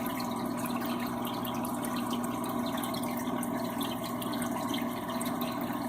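Steady trickling water with a constant low hum from aquarium equipment, and faint small drips over it.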